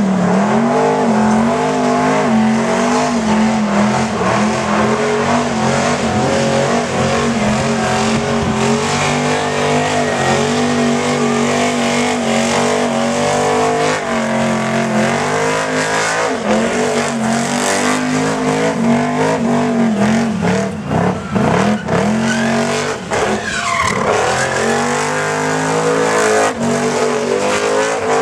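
A car doing a burnout: the engine held at high revs while the rear tyres spin and squeal against the pad, the engine note wavering as the throttle is worked. About twenty seconds in, the revs drop and climb back sharply a few times before settling high again.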